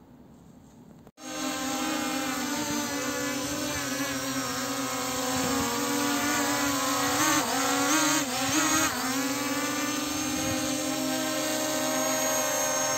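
SG907 Max quadcopter hovering, carrying a GPS tracker strapped on top. Its motors and propellers give a steady multi-tone buzz that starts suddenly about a second in, and between about seven and nine seconds in the pitch wavers up and down as the motors change speed.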